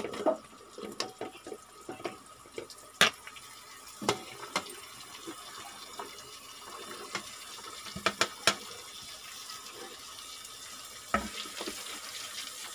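Chopped pumpkin and green peas tipped from a plate into an aluminium pressure cooker of hot oil, landing with scattered sharp clicks and knocks over a steady hiss from the hot oil.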